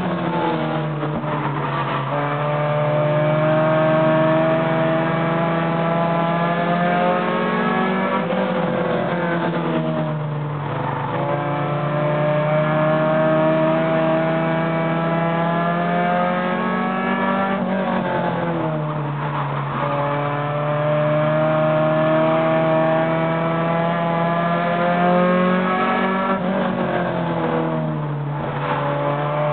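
Short-track race car engine running hard, its pitch climbing steadily for several seconds and then dropping sharply, about every eight or nine seconds: accelerating down the straights and lifting for the turns, lap after lap.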